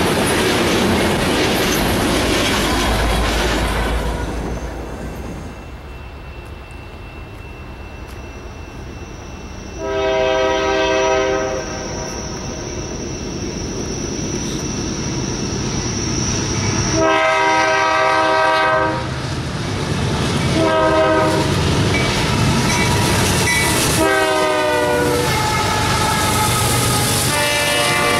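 Freight tank cars rumbling and clattering past. Then an approaching freight locomotive sounds its multi-note air horn in four blasts, long, long, short, long, the standard grade-crossing signal. The last blast drops in pitch as the locomotive passes, and the horn and rumble of the passing train follow near the end.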